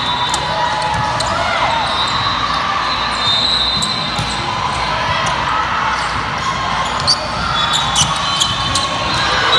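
Volleyball rally in a gym: several sharp slaps of hands hitting the ball, the loudest about seven seconds in with a few more soon after. Behind them is a steady murmur of spectators' voices echoing in the large hall.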